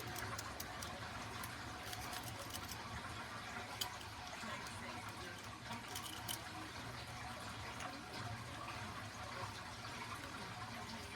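Faint, irregular clicks and scratching of a lock pick and tension wrench working the pins of a Defiant deadbolt cylinder, over a steady low hum.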